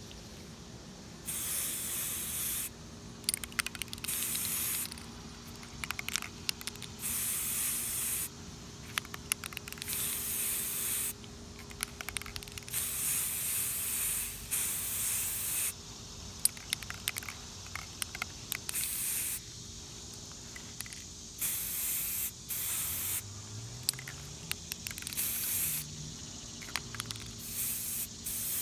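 Aerosol spray-paint can spraying red paint in about a dozen short hissing bursts of one to two seconds each, with pauses and small clicks between them.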